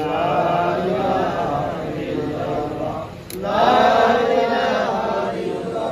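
A man chanting a dua, the Islamic supplication that closes a nikah, in a melodic reciting voice. He breaks off briefly about three seconds in and resumes louder.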